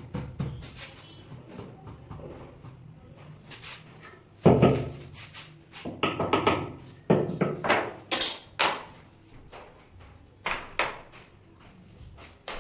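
Knocks and thuds of marble slabs being handled and set in place: one heavy thud about four and a half seconds in, then a run of sharper knocks and two more near the end.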